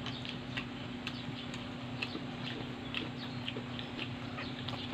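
Chewing and handling of crispy fried chicken: scattered small, irregular clicks and crackles over a steady low hum.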